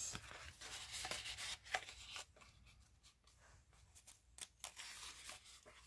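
Paper and cardstock rustling and sliding as tags and cards are handled and tucked into a handmade junk journal's paper pocket, with a few light ticks and taps of card against the pages.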